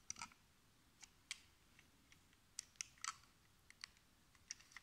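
Faint, scattered small clicks and taps, about a dozen, from a Welly 1:38 diecast BMW 328 model car being handled in the hands.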